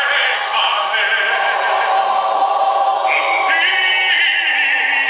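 Large mixed choir of men's and women's voices singing, with long held notes.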